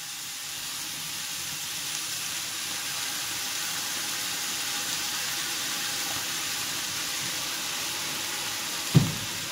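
Julienned carrots, green capsicum and cucumber sizzling steadily in a hot nonstick frying pan as a spoonful of vinegar goes in, a hiss that swells a little in the first couple of seconds. A brief thump near the end.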